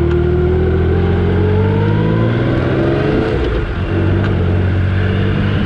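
Motorcycle engine running at road speed, about 80 km/h, with wind buffeting a helmet-mounted mic on an open-face helmet. The engine note rises for about three seconds, dips briefly, then holds steady.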